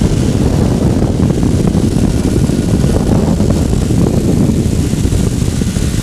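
Strong wind buffeting the microphone of a camera on a small aircraft in flight: a loud, steady low rumble.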